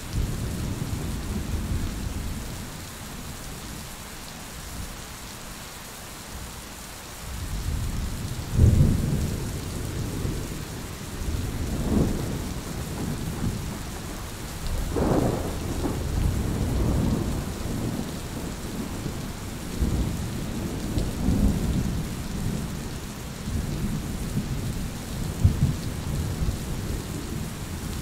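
Steady rain with rolling thunder. After a lull of rain alone near the start, low rumbles of thunder swell and fade every few seconds from about a third of the way in.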